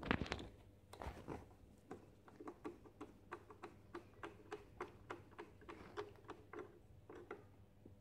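Hand screwdriver being turned to drive a screw into the coffee machine's side panel, giving faint, light clicks about three to four a second as it turns.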